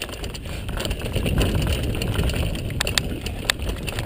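Mountain bike riding fast down a dirt trail: a steady low rumble of wind and tyres on the camera's microphone, with a few sharp clicks and rattles from the bike about three seconds in.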